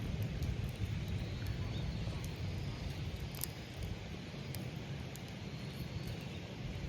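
A wood campfire burning, with scattered faint crackles over a steady low outdoor rumble.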